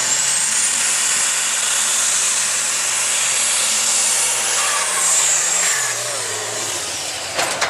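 Case IH 8950 Open Super Stock pulling tractor at full power hauling the weight sled, its turbocharged diesel engine running flat out with a high turbo whistle. The whistle climbs early, holds, then drops away a little after five seconds in as the engine eases off. A few sharp clicks come near the end.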